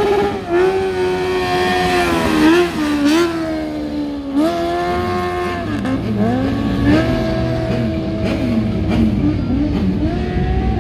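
Motorcycle engine revving hard while drifting, its pitch holding high and then dipping and rising again with quick blips of the throttle.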